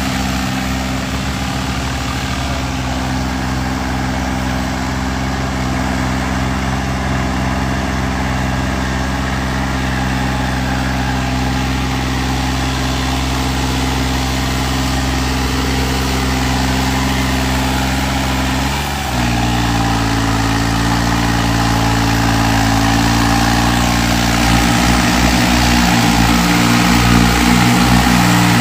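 Diesel engines of a Swaraj 735 and a John Deere 5050D tractor running hard under load, pulling against each other in a tug-of-war. The engine note is loud and steady and shifts in pitch about two-thirds of the way through.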